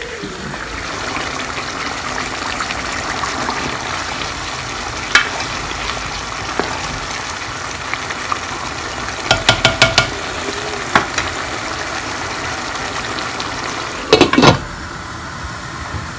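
Aubergine and tomato curry sizzling in a pot while it is stirred with a spoon, with a quick run of ringing clinks against the pot about ten seconds in. Near the end a glass lid clatters down onto the pot.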